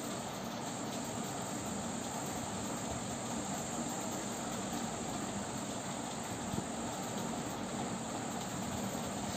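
Steady background noise: an even hiss with a constant high-pitched band and a faint low hum, and a single small click about six and a half seconds in.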